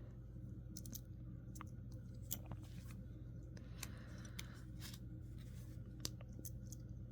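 Faint handling noise: scattered small sharp clicks and light rustles from objects being handled, over a low steady hum.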